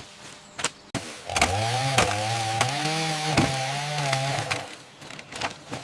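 A power tool's motor revs up about a second and a half in, runs for about three seconds with small dips in pitch, then winds down. Sharp knocks and taps are heard throughout.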